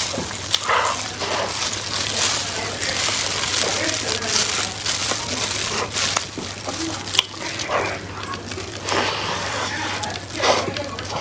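Close-up chewing and wet mouth sounds of someone eating soft chocolate lava cake, with the crinkle of thin plastic gloves as the cake is pulled apart.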